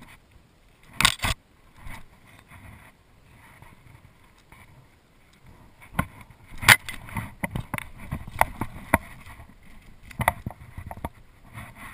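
Clicks and knocks of fly-rod and fly-line handling in a kayak: a pair of sharp clicks about a second in, then, from about halfway, a run of irregular clicks and knocks while fly line is stripped in by hand and the rod is raised to cast again.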